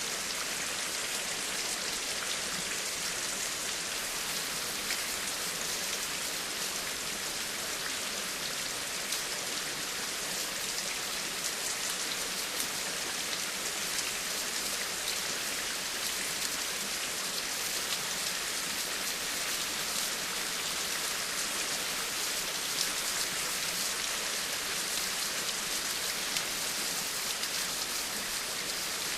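Steady rain falling, a dense even hiss with many small drop taps.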